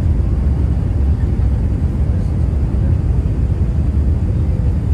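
Airliner cabin noise on approach to landing: a steady, loud low rumble of engines and airflow.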